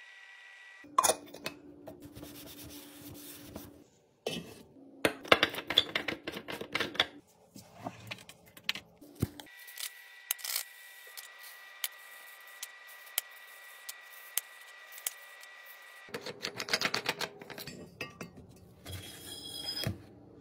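A run of short kitchen refilling sounds: containers clinking and rubbing, and rattling crackles, with sparse ticks in the middle as pink salt is poured through a funnel into a glass jar.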